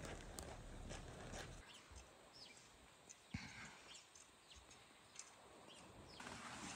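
Footsteps crunching in snow for about the first second and a half, then near silence with a few faint, short, high chirps and small clicks.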